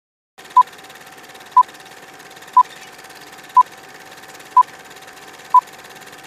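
Film-leader countdown sound effect: six short beeps, one a second and all at the same pitch, over a steady hiss with a faint thin tone under it.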